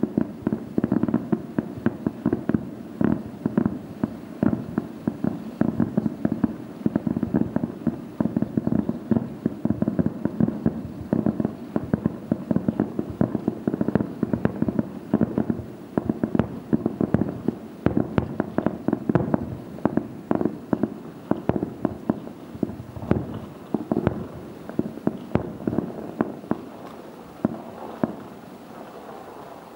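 Fireworks bursting in rapid succession: a dense run of pops and crackles with many shells going off at once, thinning out near the end.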